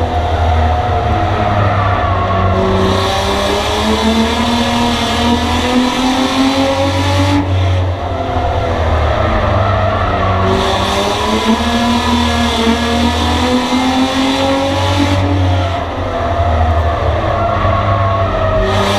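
Race car engine heard from inside its stripped cockpit during a lap of a short oval. The note climbs on each straight and falls away as the throttle is lifted for the turns: near the start, about eight seconds in, and again around fifteen seconds in.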